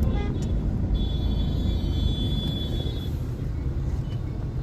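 Jammed city road traffic rumbling steadily, with a brief vehicle horn right at the start. From about a second in, a high-pitched whine is held for about two seconds.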